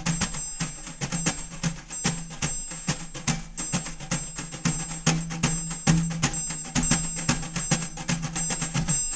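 Credits music: quick, steady percussion hits over a held low bass note.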